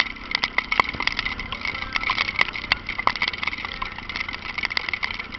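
Honda Falcon 400 motorcycle engine running, with many sharp ticks of raindrops striking the microphone over a steady rushing noise.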